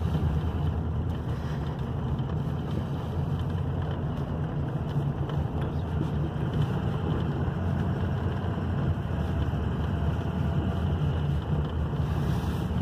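Steady low rumble of a vehicle's engine and tyres, heard from inside the cabin while driving.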